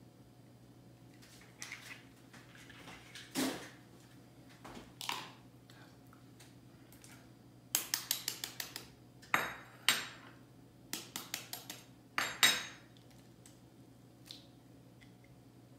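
A knife blade tapping an eggshell to crack it: a quick run of taps about eight seconds in, then more taps and clicks over the next few seconds, the loudest near twelve seconds in, while eggs are separated into whites and yolks. Scattered lighter knocks of shell and bowl come before and after.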